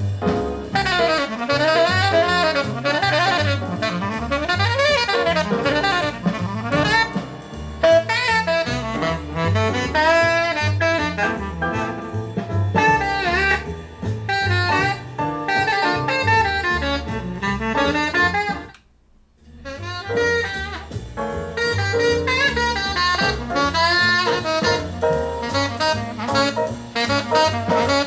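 A jazz recording with a saxophone lead over walking bass and drums, played back through A5 loudspeakers on a caster stand for a listening comparison of granite blocks under the stand. About 19 seconds in the music drops out for under a second, then resumes.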